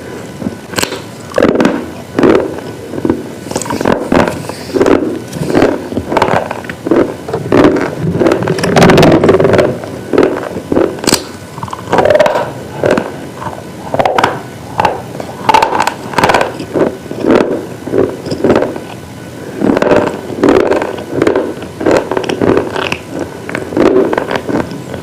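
Hard, brittle food being bitten and chewed close to the microphone: loud crunches and crackles, about one or two a second, in irregular runs.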